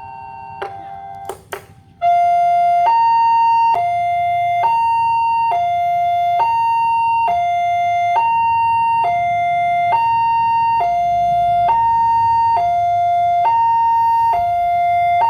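Railway level crossing warning siren starting suddenly about two seconds in, then sounding a loud, steady two-tone hi-lo alarm, each note held just under a second, after a quieter clicking tone at the start.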